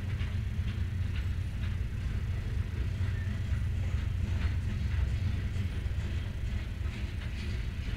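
Freight train of covered hopper cars rolling past: a steady low rumble of steel wheels on rail, with scattered clicks and clanks from the wheels and cars.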